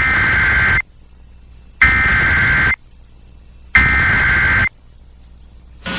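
Three bursts of the Emergency Alert System's SAME digital header, the harsh two-pitch data screech, each just under a second long and about a second apart. The header encodes the alert's event code, here a Flash Flood Warning, and the counties it covers.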